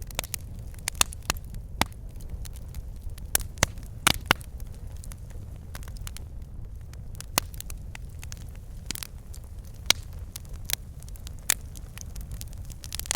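Wood fire in a fireplace: logs crackling, with sharp irregular pops over a low steady rumble of flame.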